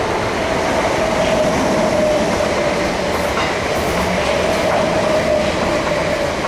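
Two coupled Class 455 electric multiple units passing, running steadily over the rails with a steady whine and a few clicks of wheels over rail joints. The train clears by the end.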